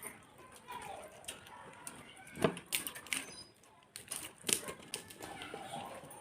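Eating sounds: irregular clicks and smacks of people chewing and eating rice and curry by hand, with a few louder clicks among them.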